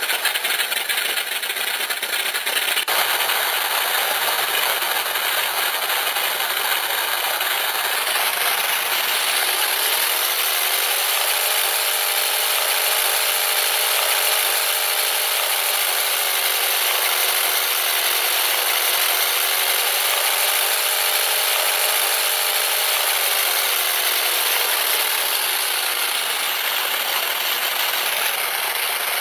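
RC sound generator module playing a simulated BMW aircraft engine through its small speaker: the startup sound, then the engine running at a high idle because the throttle was set a little too high. From about ten seconds in, the engine note rises and falls twice.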